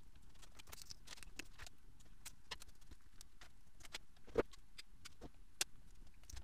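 Scattered small clicks, taps and scrapes of a small screwdriver and gloved hands prying silicone potting off a fiber laser's spool of spliced optical fibers, with two sharper clicks about four and a half and five and a half seconds in.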